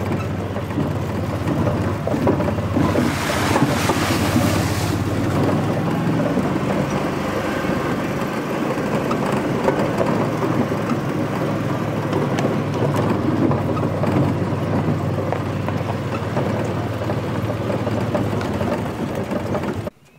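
Motor vehicle running steadily with a low hum and road noise. A brief hiss comes in about three seconds in, and the sound cuts off abruptly near the end.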